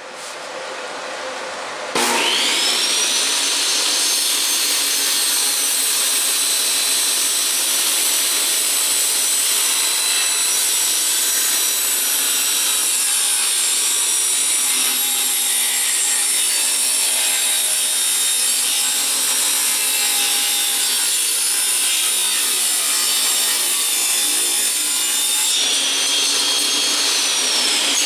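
Table saw starting up about two seconds in, then running steadily with a high whine while ripping a pine board lengthwise to width. Near the end the whine drops as the blade winds down.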